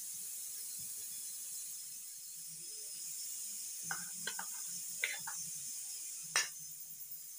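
A metal spoon clinking and scraping against a bowl as chopped chayote, onion and tomato are tossed together. A few light clicks come from about four seconds in, then one sharper clink near the end, over a steady high hiss.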